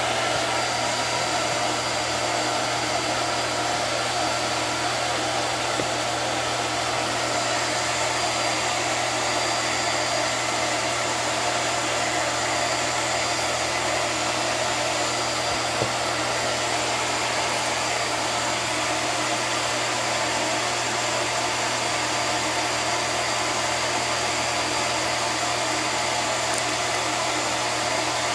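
A blower motor running steadily: an unbroken whir of air noise with a constant hum, never changing in level.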